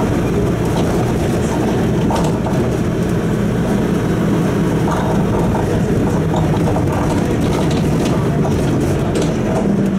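City bus driving, heard from inside the passenger cabin: a steady low engine hum over even road noise, with light clicks and rattles now and then.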